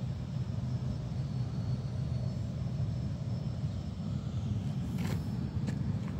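Steady low rumble in the background, with two short faint clicks near the end.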